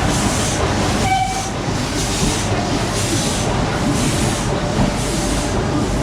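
Nilgiri Mountain Railway steam locomotive chuffing slowly, a rhythmic hiss of exhaust steam about twice a second, with a brief squeal about a second in.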